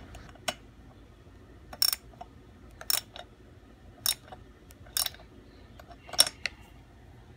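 Sharp, separate clicks and clacks, roughly one a second and unevenly spaced, from small tools or parts being handled.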